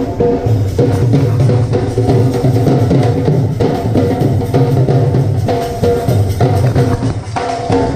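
Dhol drums beaten steadily by a traditional folk band, with a pitched melody running over the drumming.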